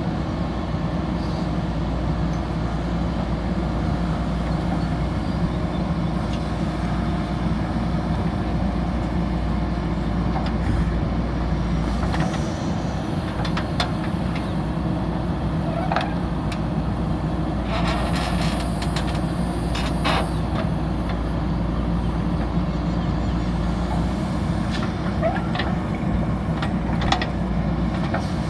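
JCB backhoe loader's diesel engine running steadily while it works, with scattered metallic knocks and rattles, a cluster of them about two-thirds of the way through.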